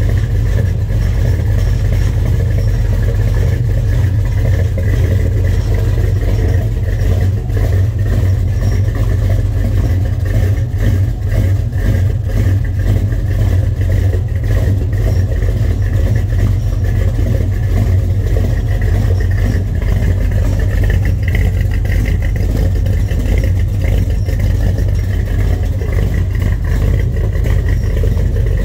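1970 Chevrolet Chevelle's engine idling steadily after a cold start, with a loud, even low rumble.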